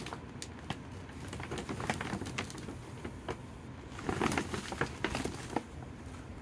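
A gift bag rustling and crinkling as hands rummage in it and pull out a cardboard gift box, in a run of short crackles that is loudest about four seconds in.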